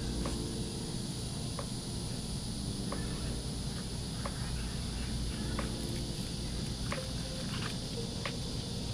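Evening outdoor ambience: a steady high insect drone over a low rumble, with faint scattered clicks about once a second.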